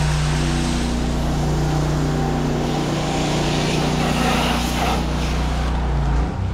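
Pressure washer running with the gun held open. A steady engine-and-pump drone sits under the hiss of soft-wash solution spraying from the wand's fan tip against the house wall. Near the end the drone shifts pitch and dips briefly.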